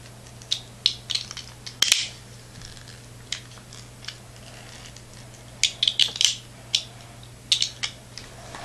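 Hard plastic parts of a Beyblade spinning top clicking and clacking as its upper and lower sections are fitted together and twisted, in irregular clusters of sharp clicks.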